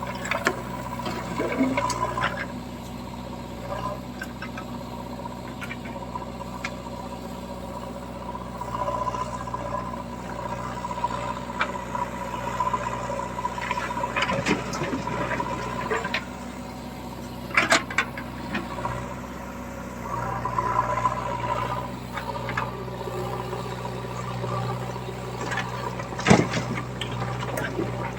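Diesel engine of heavy machinery running steadily, with a few sharp knocks and clanks, the loudest a little over halfway through and near the end.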